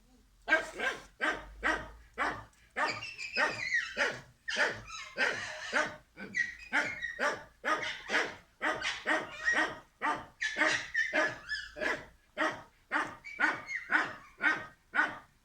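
A dog barking over and over in a steady run, about two barks a second, starting about half a second in.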